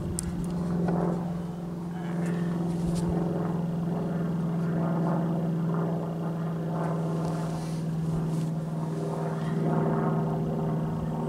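A steady engine drone at an unchanging pitch. A few light knocks of wooden boards being shifted sound over it.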